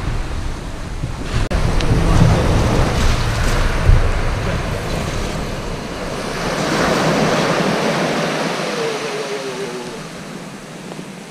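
Surf breaking on a shingle beach, with wind rumbling on the microphone that eases after about four seconds, and a single sharp knock about a second and a half in.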